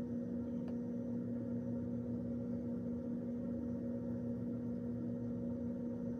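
A steady low hum with two held tones over a faint hiss.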